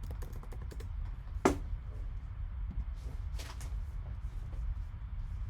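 A few light clicks and taps from handling at a desk, the sharpest about a second and a half in, over a low steady hum.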